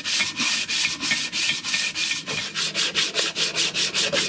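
Quick, even back-and-forth rasping strokes, about four or five a second, from a sharpening stone rubbed by hand across the end flange of a boat engine's heat exchanger, dressing the gasket mating surface flat.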